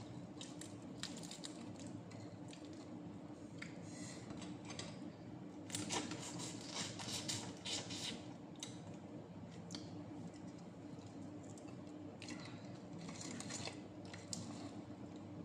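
Smoked fish being pulled apart by hand and eaten: scattered small crackles and clicks of flaky flesh, skin and bones, with denser runs of crackling and chewing about six to eight seconds in and again near the end, over a steady low hum.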